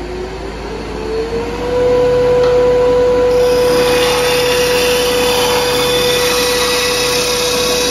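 Wood lathe running at high speed while a turning tool cuts into a spinning ambrosia maple blank, roughing it down. A steady whine climbs in pitch and settles about a second and a half in, and the hiss of the cut comes in about three to four seconds in.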